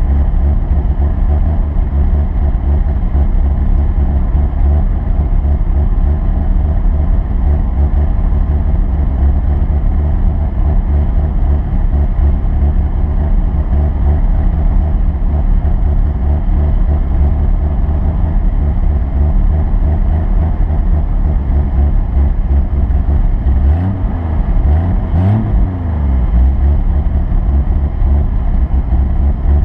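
Vehicle engine running with a heavy, steady low rumble. It revs up and down briefly about 24 to 26 seconds in.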